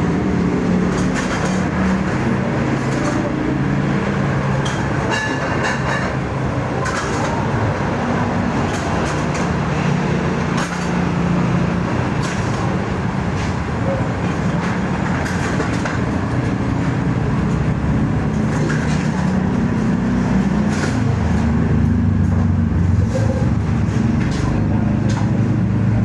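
A road vehicle running, with a steady engine hum and road noise whose pitch drifts slowly up and down, and a few light rattles and clicks.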